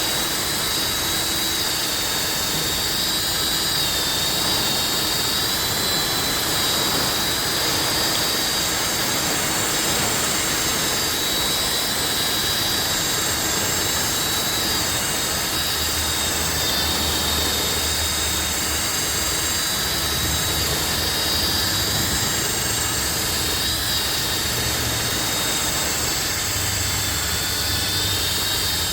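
Power tool spinning a wire brush against the wheel hub, scrubbing off surface rust. It runs steadily with a high whine that wavers slightly as the brush is pressed on.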